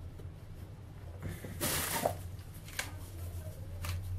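Handling noises from a stacked wooden spice-jar tower being fitted into place: a short rustle about one and a half seconds in, then a few light clicks and knocks.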